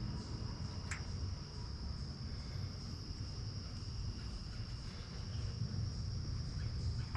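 A steady, high-pitched insect trill over a low background rumble, with one faint click about a second in.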